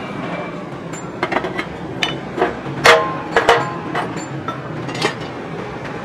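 Irregular sharp knocks and clanks of sheet-metal water-heater parts being knocked and fitted together by hand, the loudest strike about three seconds in, with a short metallic ring.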